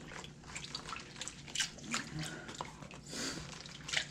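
Water sloshing and dripping as a plastic gold pan of paydirt is swirled and dipped in a tub of water, with scattered small drips and splashes and a louder wash about three seconds in.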